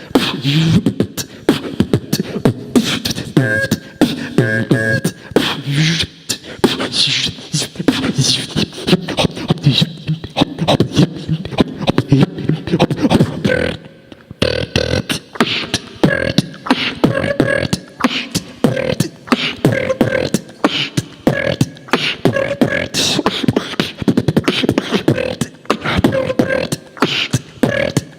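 Human beatboxing: a fast, dense run of percussive mouth sounds with held vocal tones woven in, breaking off for a moment about halfway through.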